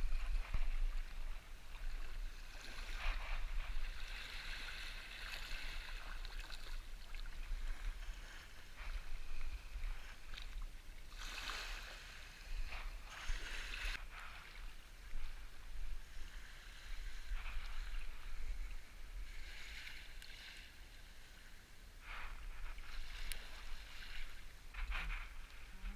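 Shallow seawater washing and splashing at the water's edge, rising and falling in several swells, over a steady low rumble of wind on the microphone.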